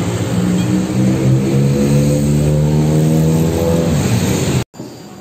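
A motor vehicle engine running loudly, its pitch slowly rising as if accelerating. It cuts off abruptly near the end, leaving quieter street noise.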